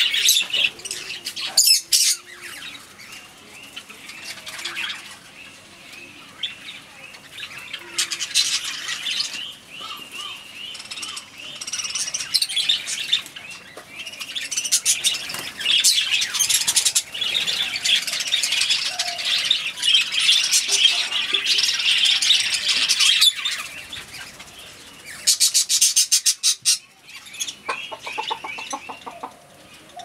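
A flock of budgerigars chattering and warbling: dense, rapid high chirps that come and go in stretches, with a couple of quieter spells between.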